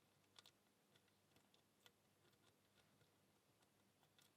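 Near silence, with a few faint, scattered clicks of a lock pick working the pins of an Abus 65/15 padlock under tension. The lock is not opening; the picker blames his tensioning.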